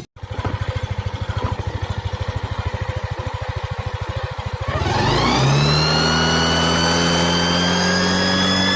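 Yamaha NMAX scooter's single-cylinder engine idling with a quick, even pulsing. About five seconds in, the throttle is opened and a jet-like whine from the fitted jet sound effect sweeps up in pitch, then keeps climbing slowly and holds loud.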